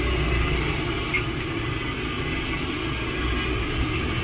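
Battered tempe slices deep-frying in a wok of hot oil, a steady sizzle over a constant low rumble.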